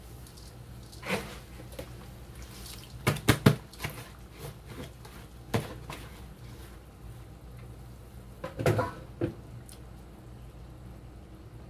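A metal spatula knocking and scraping against a wok, a handful of sharp clatters with a quick cluster about three seconds in and another near nine seconds, over a steady low hum.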